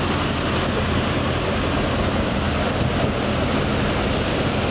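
Tractor engine running steadily as it tows a passenger trailer along the beach, mixed with a steady rush of surf.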